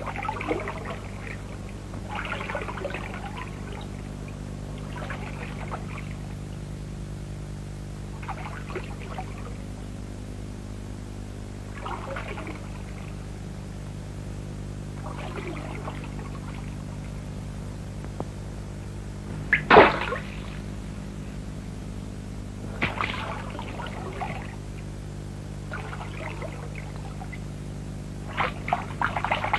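Lake water splashing and running off in repeated strokes, about one every three seconds, as poles and weed rakes are worked from small boats. One sharper splash comes about two thirds of the way through. A steady low hum runs underneath.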